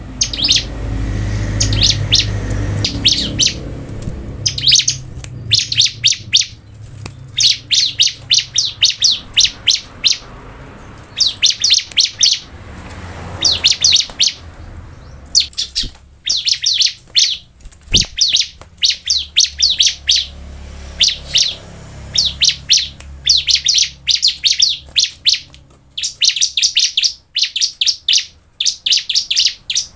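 Bar-winged prinia (ciblek) singing: bursts of rapid, high chirping notes about a second long, repeated again and again with short gaps. A low rumble sits under the first few seconds, and a single sharp click comes about halfway through.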